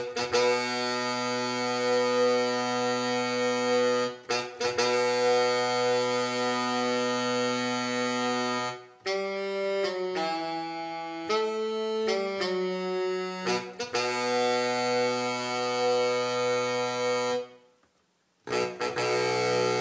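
A sampled, layered horn section (sax octaves, sax section, horn section and alto sax one-shots) played from a MIDI keyboard through Native Instruments Maschine. It plays a horn melody: long held notes, a run of shorter notes in the middle, held notes again, then a brief break before it starts over.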